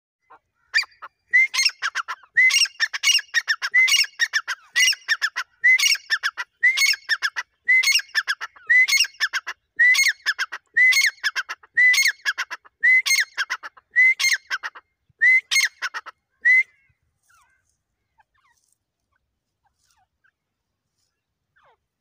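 Grey francolin (dakhni teetar) calling over and over, about one call a second, each call a quick run of loud notes; the calling stops after about sixteen seconds.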